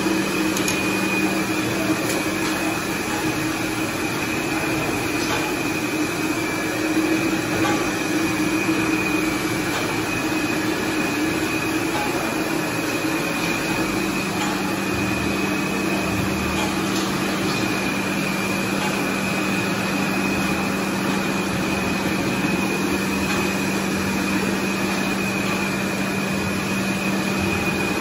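A 40-bottle-a-minute carbonated soft drink bottling machine running: a steady mechanical hum with a few held tones and faint scattered clicks.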